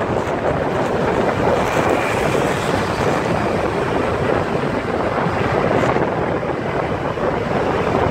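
Steady wind rushing over the microphone of a camera moving with road traffic, mixed with engine and tyre noise.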